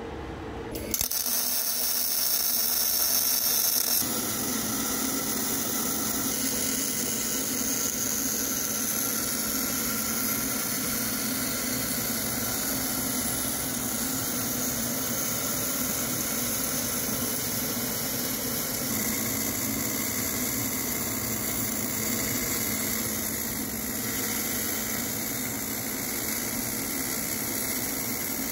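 A steady mechanical whine with a hiss, with a louder hissing stretch lasting about three seconds starting about a second in.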